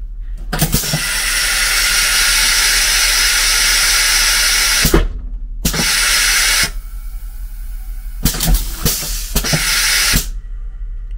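Passenger railway carriage's pneumatic flush toilet cycling after its button is pressed: a click, then a loud hiss of compressed air lasting about four seconds, a sharp click, a second, shorter hiss, and a run of valve clicks near the end. The flush is working, run on air pressure from the carriage's compressor.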